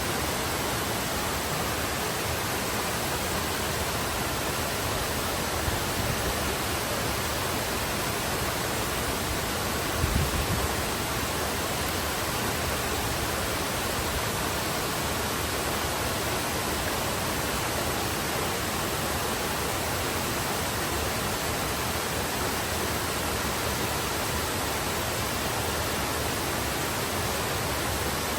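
Waterfall: a steady, even rush of falling water, with a brief low thump about ten seconds in.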